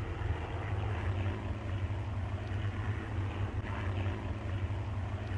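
Propeller aircraft piston engines droning steadily, on an old, muffled film soundtrack.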